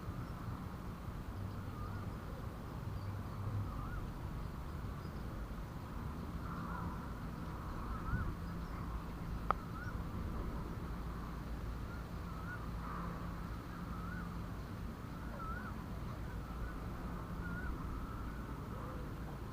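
Birds calling in short, wavering chirps, repeated again and again over a steady low rumble, with a single sharp click about halfway through.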